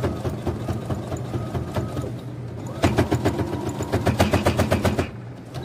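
Brother electronic sewing machine running slowly, topstitching along a zipper edge, its needle ticking steadily over a motor hum. About three seconds in it speeds up and gets louder, then stops about a second before the end.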